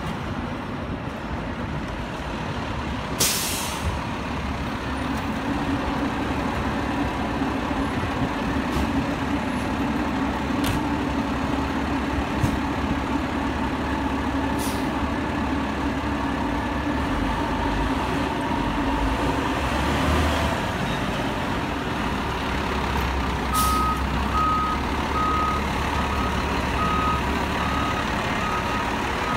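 Seagrave fire engine's diesel running steadily, with a loud air-brake hiss about three seconds in and shorter hisses of air later. Near the end a reversing alarm starts beeping steadily as the engine backs into its firehouse.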